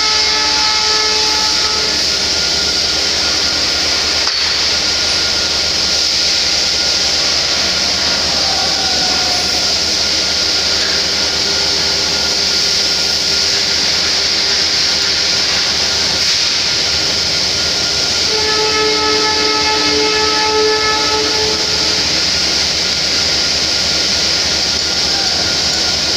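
Loud, steady machinery noise in a locomotive workshop, with a constant high hiss. A pitched, multi-tone machine hum comes in for the first couple of seconds, again for a few seconds about two-thirds of the way through, and near the end.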